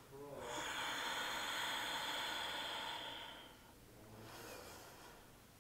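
A person's long, audible breath lasting about three seconds, then a softer, shorter breath, held in a deep yoga stretch.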